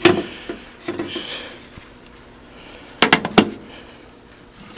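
Handling clicks and knocks in a small enclosed space: one sharp click at the start, then a few sharp knocks close together about three seconds in. No engine is cranking or running.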